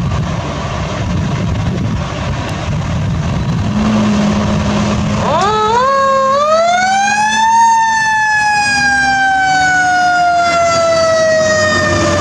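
Fire engine's diesel engine rumbling as it pulls out. About five seconds in, a Federal Q2B mechanical siren winds up in a few short steps, peaks, then coasts slowly down in pitch.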